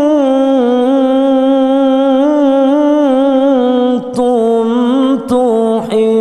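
A man's voice reciting the Quran in the melodic qira'ah style through a handheld microphone, holding long notes with small wavering ornaments, with a few short breaks in the last two seconds.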